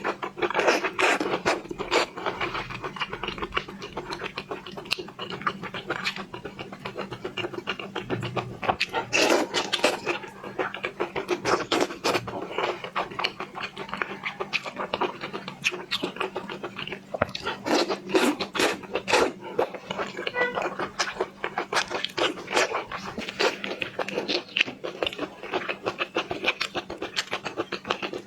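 Close-miked eating sounds of seafood being chewed: a dense, irregular run of wet smacks, crackles and clicks, over a faint steady low hum.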